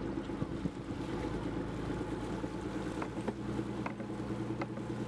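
Fishing boat's engine running at a steady hum, with the wash of water around the hull and a few light clicks in the second half.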